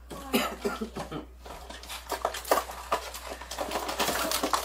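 Low talk, with the rustle of a cardboard box and a paper onion soup mix packet being pulled out of it.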